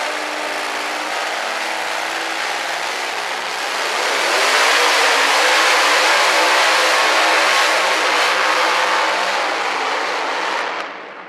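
Supercharged engine of a two-wheel-drive pulling truck running at low revs, then going to full throttle about four seconds in as it hauls the weight-transfer sled down the track. The noise stops abruptly near the end.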